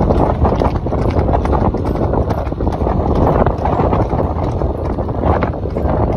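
Wind rushing over the microphone and a bicycle rattling and knocking over the road surface while riding. It is a steady, loud rumble with irregular knocks all through.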